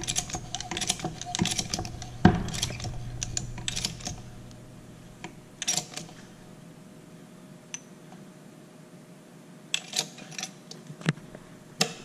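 Hand pump lever of a hose coupling expander machine being worked: a quick run of clicking, clacking strokes for about four seconds, then a few scattered clicks as the pump brings the expander up to pressure inside the coupling.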